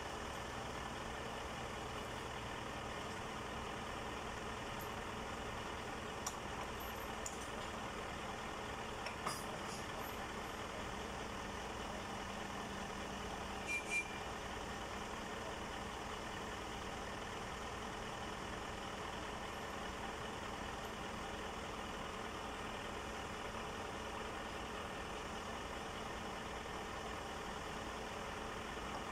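Heavy diesel engine running steadily at idle, with a few short knocks, the loudest about 14 seconds in.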